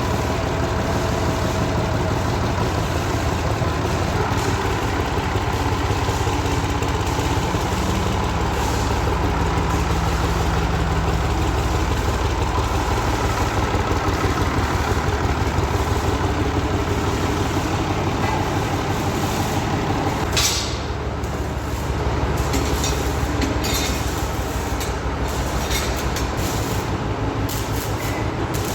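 Automatic sawmill running steadily, a continuous mechanical hum and rattle. About two-thirds of the way through there is a short sharp burst of noise, followed by more irregular clattering.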